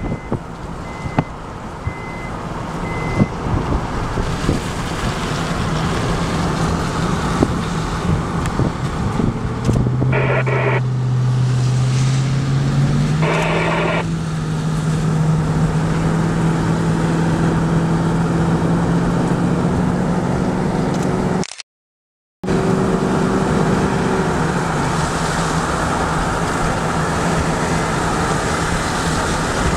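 Car engine and road noise heard from inside a moving vehicle. The engine note climbs about ten seconds in as the car speeds up. The sound cuts out completely for about a second roughly two-thirds of the way through.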